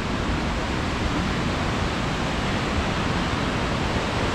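Whitewater creek rushing steadily over rocks below a waterfall.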